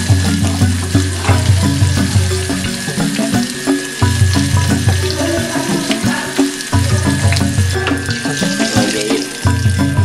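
Background music with a steady beat over the continuous sizzle and crackle of whole small birds deep-frying in a pan of hot oil.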